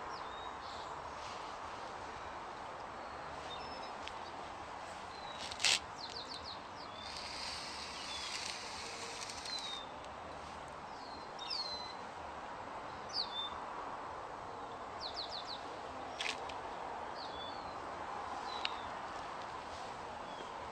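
Small birds chirping in short, quick high series over a steady outdoor hiss. About seven to ten seconds in comes a scratchy hiss as a line is drawn in chalk on concrete, and two sharp clicks stand out.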